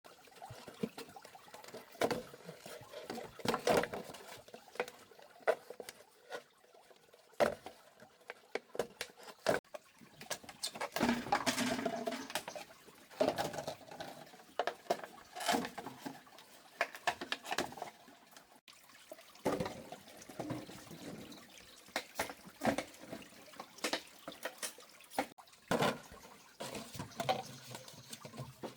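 Plastic bottle being handled and pierced for drainage holes: irregular clicks, knocks and crackles of the plastic, with a sound of water.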